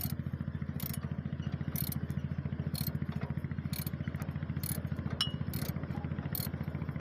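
Dongfeng 8.5 HP single-cylinder diesel engine running steadily with a fast, even beat, with a sharp tick about once a second.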